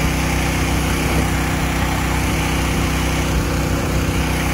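Small gasoline engine driving the sprayer's pump, running steadily at a constant speed, with the hiss of spray from the boom nozzles.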